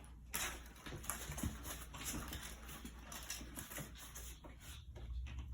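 Four-week-old puppies playing and scuffling, with soft scattered patter and small faint noises.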